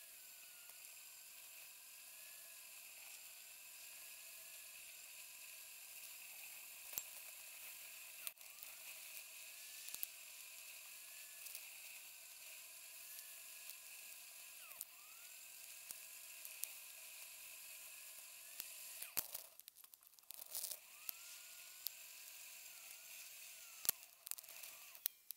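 Faint steady hiss and a thin wavering whine from a bicycle-mounted camera's own workings, with scattered sharp clicks and knocks as the mount jolts over the trail. The sound briefly drops out about two-thirds of the way through.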